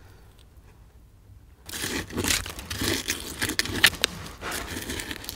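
A hand tool scraping and digging through loose, gravelly privy fill, starting about a second and a half in: a steady crunching full of small clicks.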